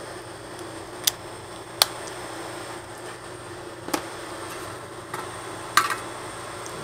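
Four sharp clicks and taps, a second or two apart, as the parts of an opened outdoor LTE router unit are handled. The last one has a short metallic ring. A steady hum runs underneath.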